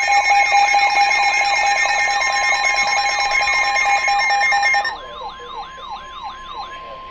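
Emergency alert tones ahead of a severe thunderstorm warning: a steady NOAA Weather Radio warning tone under a pulsing lower tone, several higher steady tones and quickly repeating falling siren-like sweeps. The pulsing tone and the upper tones cut off abruptly about five seconds in, leaving the steady warning tone and the sweeps, more quietly, until near the end.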